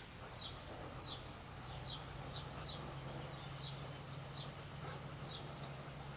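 A small bird chirping repeatedly: short, high, falling chirps, irregularly spaced about once or twice a second, over a steady low hum.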